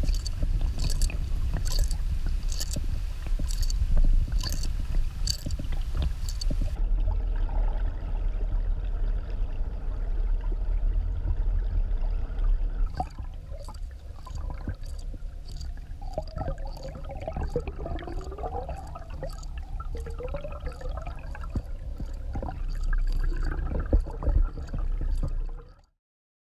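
Muffled underwater water noise with a low rumble, heard through a submerged camera. A regular clicking runs through it a little under twice a second. The sound changes abruptly twice and cuts off just before the end.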